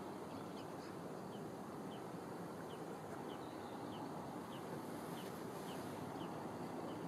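A small bird repeating a short, falling chirp about every two-thirds of a second, over a steady low background rumble.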